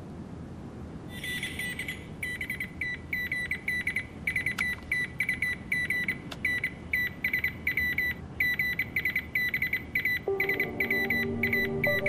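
Morse-code-style telegraph beeping: rapid high-pitched beeps on one note, short and longer pulses in irregular groups, starting about a second in. Sustained music chords come in near the end.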